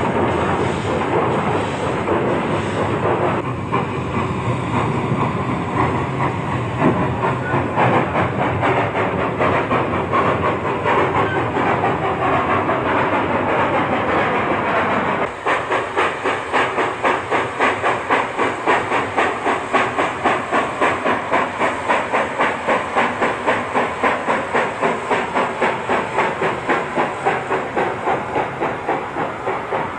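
Manitou & Pikes Peak cog steam locomotive No. 4, an 1897 Baldwin compound, under steam: a steady hiss of escaping steam with a rough exhaust, then about halfway through a steady exhaust beat of roughly three chuffs a second.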